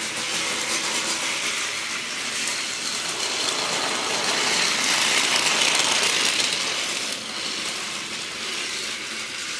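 Battery-powered Plarail toy train running on plastic track: a small motor and gearbox whirring with fast clicking and rattling from the wheels. It grows louder and is loudest about halfway through, then eases off.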